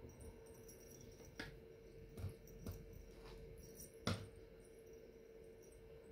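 Soft, scattered taps and clicks from hands fluffing and picking at faux fur glued onto a sweater, the loudest about four seconds in, over a faint steady hum.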